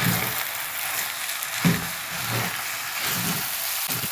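A minced-meat and vermicelli filling sizzling in a frying pan with a steady hiss while it is stirred and tossed, with a few soft knocks of the stirring in the pan.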